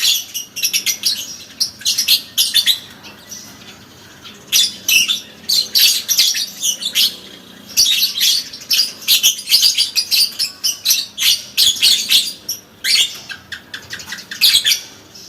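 Parblue lovebird singing its long 'ngekek' chatter: rapid, high-pitched twittering runs of a second or more, broken by short pauses.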